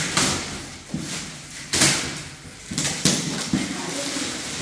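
Shiny metallic gift-wrapping paper rustling and crinkling as it is torn and pulled off a box, in irregular bursts, the loudest just under two seconds in.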